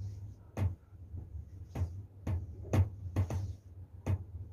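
Hands slapping and rubbing a person's back during a traditional massage: about seven sharp slaps at irregular intervals, some with a short brushing hiss, over a low steady hum.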